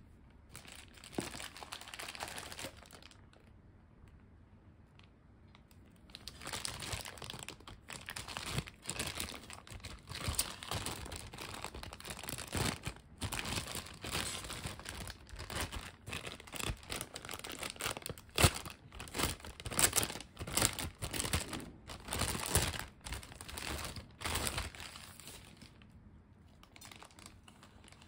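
Clear plastic bag crinkling and rustling as it is pulled off a stainless steel drain strainer. A short crinkle comes in the first seconds, then a pause, then steady handling with sharp crackles from about six seconds in, dying down near the end.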